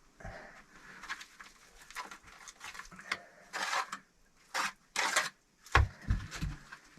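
Handling noises: a run of short rustles and scrapes, with a few soft low knocks near the end.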